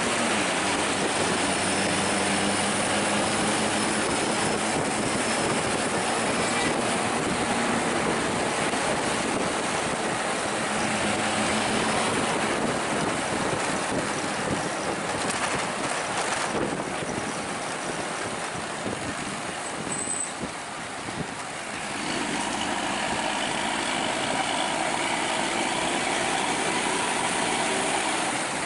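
Road traffic heard from a vehicle following a bus: engines running under a steady rush of wind and tyre noise, dropping off for a few seconds about two-thirds of the way through before picking up again.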